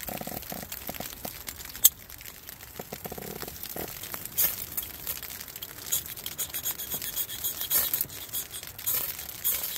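Dry birch bark and wood chips crinkling as they are handled, with one sharp click. Then, from about halfway, several quick scraping strokes of a steel striker down a ferrocerium fire-starting rod, throwing sparks onto shredded birch bark.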